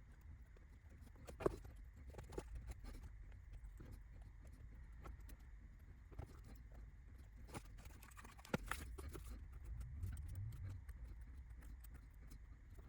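Faint, scattered taps and clicks of small laser-cut kit parts being handled and set down on a work surface. Two sharper knocks come about a second and a half in and again near nine seconds.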